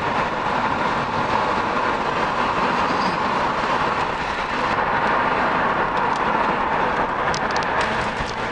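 Steady road and engine noise of a moving car, heard from inside the cabin, with a few light clicks near the end.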